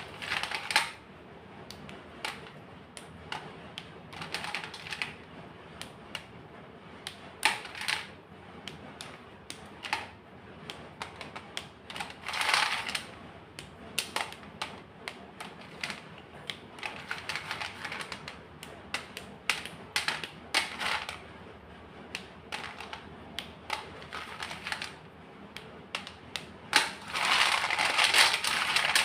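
White gym chalk being crunched and crumbled in short, irregular crackling bursts, with a longer run of dense crunching near the end.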